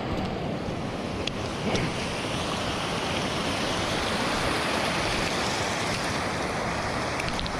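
Steady rushing hiss of wind and rain, with a few faint ticks.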